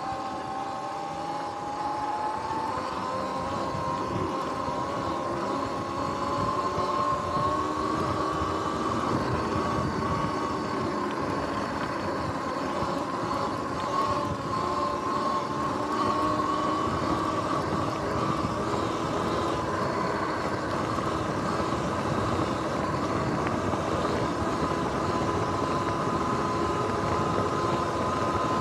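Sur-Ron X electric dirt bike riding along, its electric motor whining. The whine climbs in pitch over the first several seconds as the bike gathers speed, then holds steady over a rough rumble underneath.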